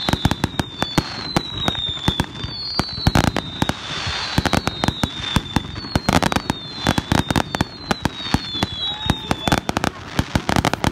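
Fireworks finale barrage: a rapid, dense string of bangs and crackles, with a high whistle that sinks slightly in pitch repeating about once a second.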